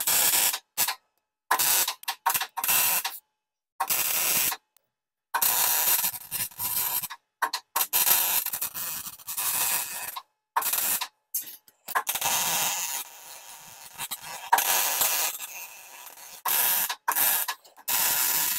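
MIG welder arc crackling on stainless steel in a string of short, abruptly starting and stopping bursts of tack welds and brief runs, with a longer stretch of welding from about 12 to 16 seconds in.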